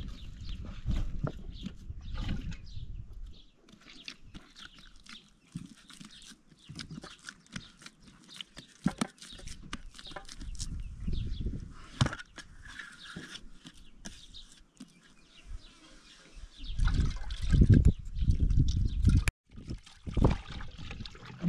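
Hands kneading a large lump of wheat dough in a metal basin: dull pressing and slapping in uneven bursts with small clicks. Near the end, water pouring from a plastic jerrycan into a metal pot and sloshing as meat is washed by hand.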